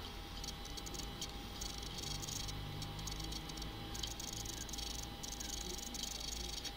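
Faint room tone from the recording microphone: steady low electrical hum and hiss, with a faint steady high whine.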